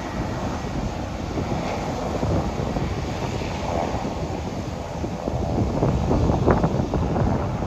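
Airbus A320 jet engines at takeoff thrust as the airliner lifts off and climbs away, a steady distant rumble. Wind buffets the microphone, louder in the last couple of seconds.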